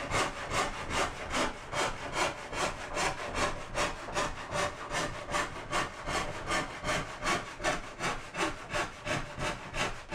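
Hand rip saw cutting lengthwise through a cherry flitch in steady, even back-and-forth strokes, about two to three a second.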